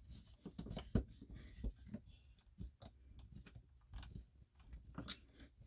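WorkPro 12-in-1 ratcheting screwdriver clicking faintly and irregularly as it is turned by hand, driving a screw into a block of wood.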